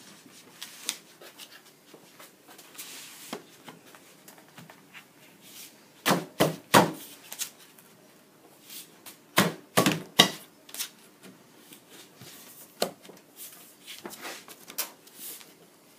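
White-painted wooden bunk-bed leg and headboard panel being pushed together onto wooden dowels: light scraping and rubbing, with a cluster of sharp wooden knocks about six seconds in, another about nine to ten seconds in, and a single knock near thirteen seconds.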